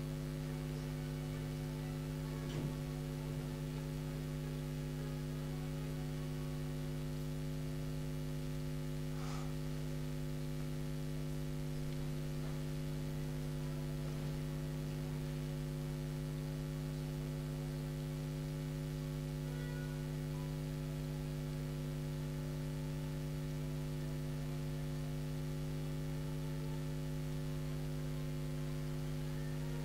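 Steady electrical mains hum, a low buzz with several overtones, holding unchanged throughout.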